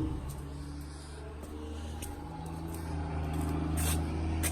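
Car engine idling steadily, a low even hum with a few faint clicks.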